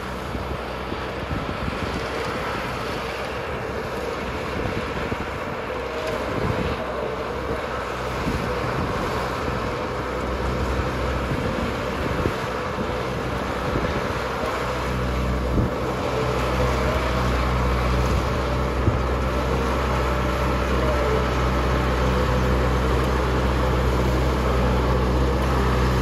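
Engine of rice-harvesting machinery running steadily, its low hum growing louder and heavier about halfway through.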